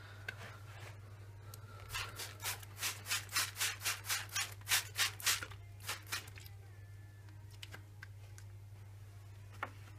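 Hand trigger-spray bottle spritzing a fabric-protector coating onto suede shoes: a quick run of short hisses, about three or four a second, starting about two seconds in and stopping after about four seconds. A low steady hum sits underneath.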